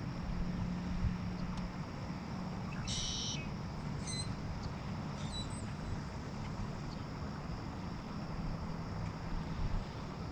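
A few short, high bird chirps, the loudest about three seconds in, over a faint steady low hum and wind noise.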